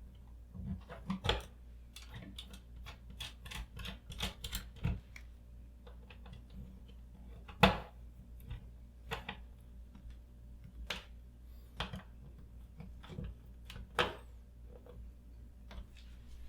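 Wall-plate screws being driven in by hand over a light switch: a run of irregular small clicks and scrapes of metal and plastic, with a sharper click about 7.5 seconds in and another near 14 seconds.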